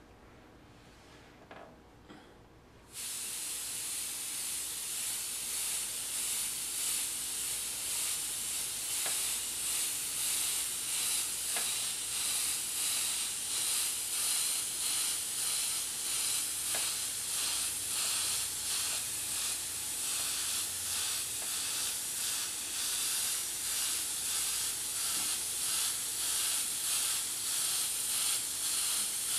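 Airbrush hissing as it mists a thin, transparent light brownish yellow ochre paint, starting about three seconds in. The hiss holds steady but swells and dips gently, roughly once a second.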